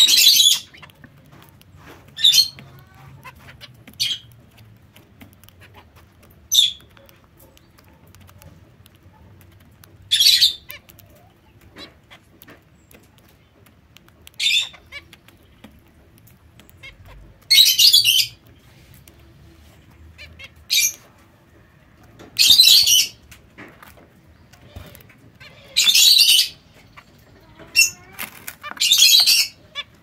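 Zebra finches feeding in a plastic seed tray: about a dozen short, irregular bursts of rustling and scratching as they pick and scatter seed, with quiet between.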